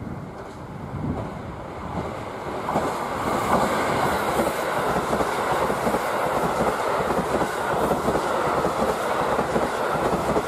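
KiHa 85 diesel express train passing close by: its diesel engines running and wheels clattering over the rail joints. It builds up over the first few seconds as it approaches, then stays loud and steady as the cars go past.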